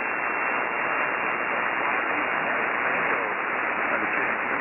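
Steady hiss and static from an Icom IC-9700 receiving in SSB on a linear satellite's downlink. A faint, garbled voice comes through the noise toward the end.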